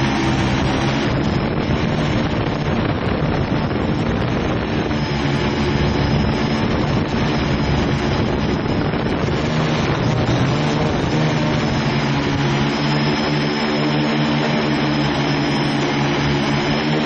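Quadcopter's electric motors and propellers buzzing steadily while it hovers, heard close up from a camera mounted on the drone. The hum's pitch wavers a little over a constant hiss.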